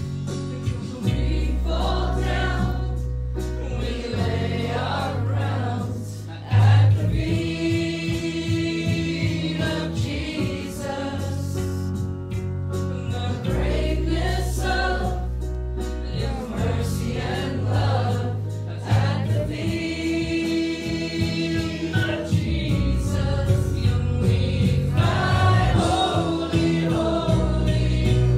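Live worship song: a woman singing lead into a microphone, backed by keyboard and electric guitar, over deep held bass notes.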